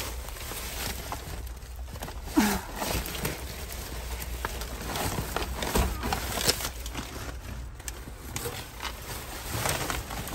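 Plastic trash bags, paper and cardboard rustling and crinkling as a dumpster's contents are rummaged through by hand, with scattered small clicks and knocks. A sharper knock comes about two and a half seconds in.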